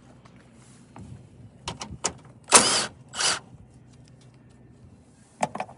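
Ratchet with a 10 mm socket working a fastener: two short bursts of rapid ratcheting clicks about half a second apart, with scattered single clicks of tool against metal before and after.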